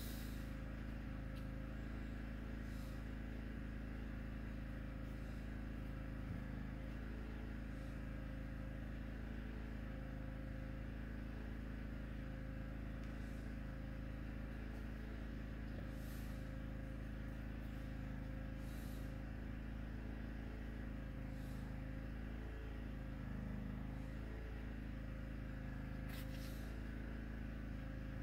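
Steady low background hum with a faint steady tone above it, and a few faint, brief rustles.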